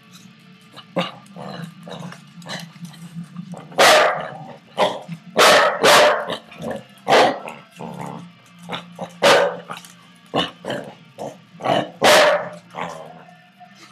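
Puppies barking: about six loud, sharp barks spread through, with smaller yaps and light clicks and scuffles between them, over a steady low hum.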